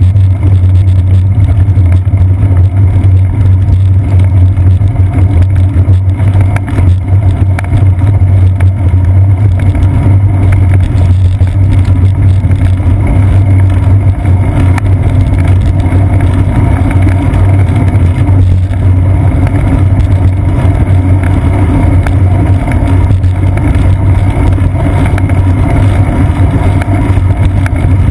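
Loud, steady low rumble picked up by a seat-post-mounted GoPro Hero 2 on a moving bicycle: road and frame vibration with wind over the camera, unchanging throughout.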